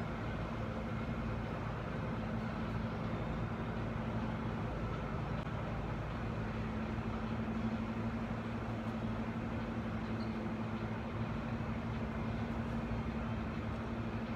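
Steady low mechanical drone with a constant hum, unchanging throughout, over an even background of outdoor city noise.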